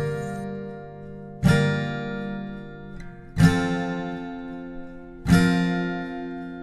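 Acoustic guitar music: a chord fading out, then three strummed chords about two seconds apart, each left to ring and die away.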